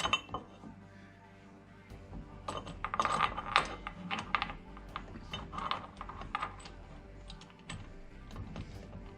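Small metal parts and hand tools clicking and clinking as a wheel and disc-brake assembly is handled and fitted, in irregular clusters of sharp clicks, with one sharp click right at the start.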